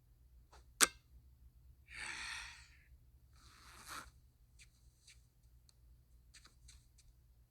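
A sharp click, then two short rustling noises and a few faint ticks.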